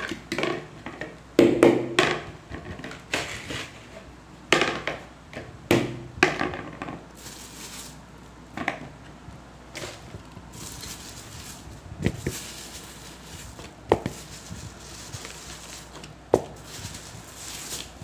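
Plastic food packets being handled and shifted, rustling and crinkling in uneven bursts, with a few single sharp knocks later on as things are set down.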